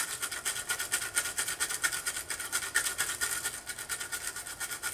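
Stiff brush scrubbing a computer logic board in quick, even back-and-forth strokes. It is working a cleaning solvent into corroded pads and flux residue.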